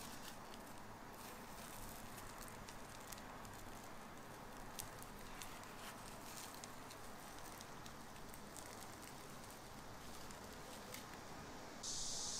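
Deep-frying oil crackling faintly with scattered small ticks over a soft hiss, typical of donuts cooking in a fryer. Near the end a louder steady hiss starts abruptly.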